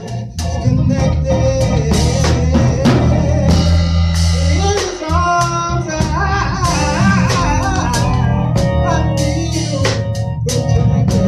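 Church band music: organ chords over a drum kit and bass, with a wavering melody line through the middle.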